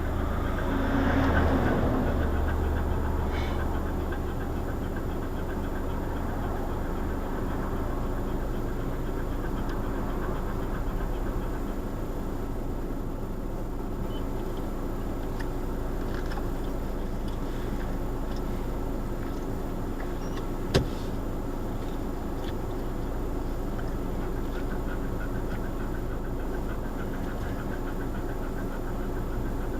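A car driving through a construction zone, with steady engine hum and road noise heard from a dashcam. The sound swells briefly near the start, and there is one sharp click about two-thirds of the way through.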